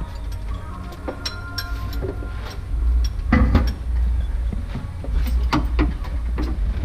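Metal clinks and knocks of tools and parts being handled during engine installation in a workshop, scattered and irregular over a steady low rumble.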